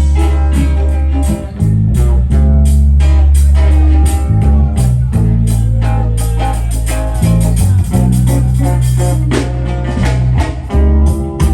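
Loud reggae music with a heavy bass line, guitar and a steady beat.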